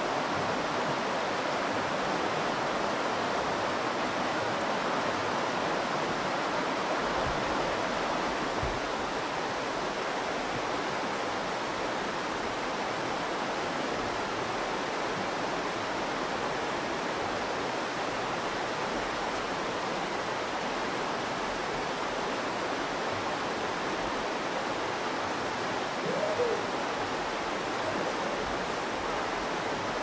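Steady rushing of the Virgin River's flowing water, with a brief faint gliding sound near the end.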